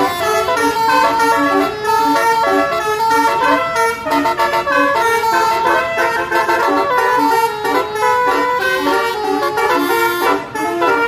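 A bus's basuri musical horn playing a melody: a loud, unbroken run of horn notes that change pitch every fraction of a second.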